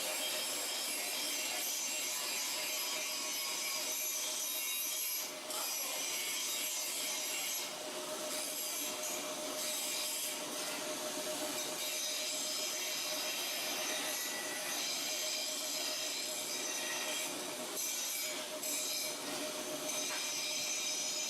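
Carpigiani three-flavour soft-serve freezer (model AES403/PSP/S) running: steady machine noise with high, thin squealing and rubbing tones over a low steady hum, dipping briefly twice.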